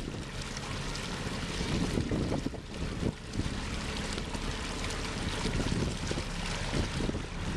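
A small lobster boat's engine running steadily as the boat motors past, with water washing along its hull and wind buffeting the microphone.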